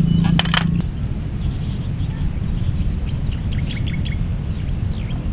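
Outdoor field ambience: a steady low rumble with small birds chirping in short repeated bursts through the second half. A couple of sharp clinks of a utensil on a plate come right at the start.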